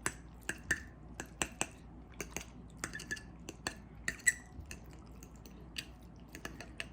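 Cutlery clinking and scraping against a plate of spaghetti: an irregular run of light clicks, some with a brief ring, thinning out near the end.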